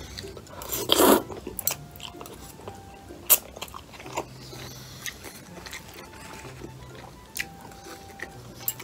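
Close-miked eating of chewy jjolmyeon noodles from chopsticks: one loud slurp about a second in, then chewing with scattered sharp mouth clicks and smacks.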